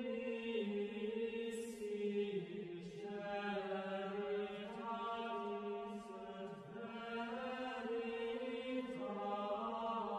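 Background music of slow vocal chanting: voices hold long notes that change pitch every second or two, with occasional soft sibilant consonants.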